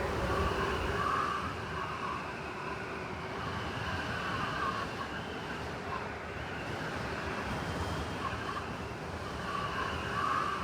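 Blizzard wind sound effect: a steady rush of wind with faint whistling tones that waver up and down and come and go.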